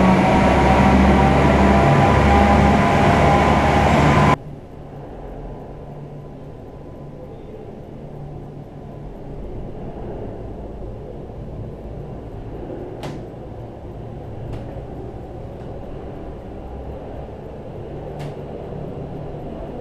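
Gondola station machinery running loud, with several steady whining tones over a deep rumble, cutting off suddenly about four seconds in. After that comes a quieter steady rumble of a cable car station hall, with a few sharp clicks.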